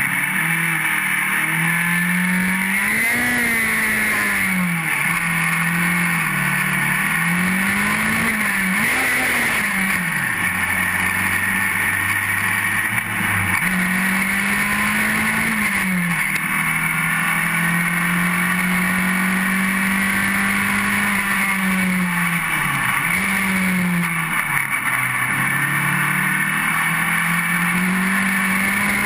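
Formula Sheane race car's Rover 1800cc four-cylinder engine at racing speed, heard from the car itself. The pitch climbs through the revs and drops sharply at each gear change, several times over. In the middle it holds steady at high revs for several seconds.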